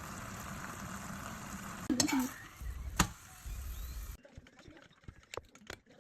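Food sizzling and frying in a pot while a utensil stirs it, with a sharp clink against the pot about three seconds in. The sizzle cuts off suddenly about four seconds in, leaving a few light taps and knocks.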